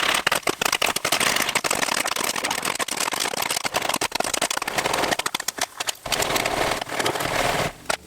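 Popcorn popping in a foil stovetop popcorn pan on a flame: many rapid, sharp pops over a steady hiss.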